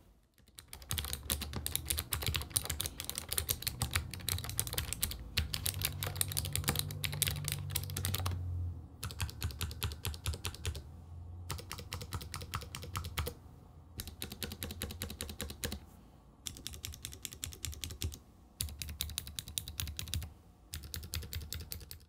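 Fast typing on a Vissles LP85 low-profile mechanical keyboard with clicky optical switches: dense runs of sharp key clicks, broken by short pauses about every couple of seconds in the second half.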